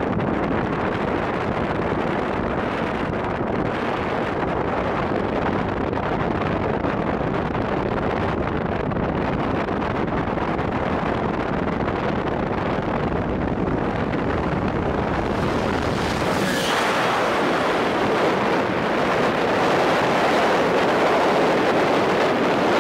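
Steady rush of wind buffeting the microphone and road noise from a car driving at speed. About two-thirds through, the rush turns brighter and a little louder.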